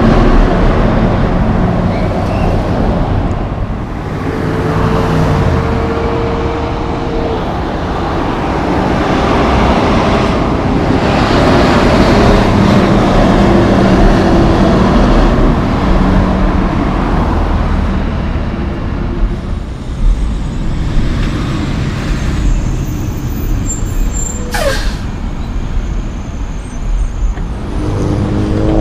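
Loaded log trucks with multi-axle log trailers passing close by: heavy diesel engines running and tyres rolling on the road, with a sharp short crack late on and an engine rising in pitch near the end as a truck pulls away.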